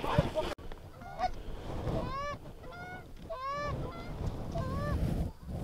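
Canada geese honking: a string of short single honks, one after another, each rising then dropping in pitch, over a low rumble.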